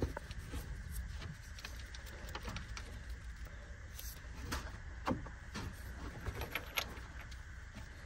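Faint, irregular clicks and light taps of gloved hands threading a new rocker arm oil pressure switch into an engine by hand and handling the harness around it, over a steady low hum. A few sharper taps come about four, five and seven seconds in.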